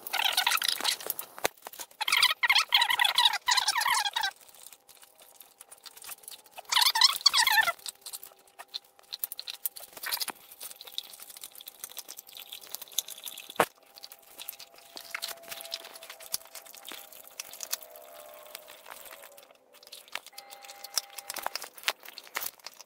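Alaskan Malamute chewing and crunching raw beef rib bone in three loud bouts of gnawing in the first eight seconds, then quieter scattered gnawing and licking.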